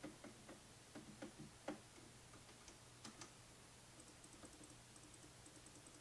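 Faint, irregular clicks of the HAVIT X1 mechanical gaming keyboard's keys being pressed, a quick cluster in the first two seconds and a few scattered ones later, over a low steady hum.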